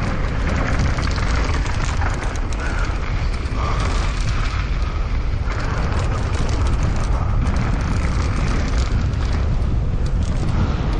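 Wind buffeting the microphone in a heavy, steady rumble, with scattered small clicks and rattles over it.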